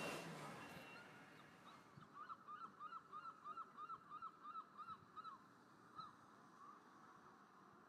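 A bird calling faintly in a quick, evenly spaced series of about a dozen short calls, roughly three a second, followed by two more spaced-out calls.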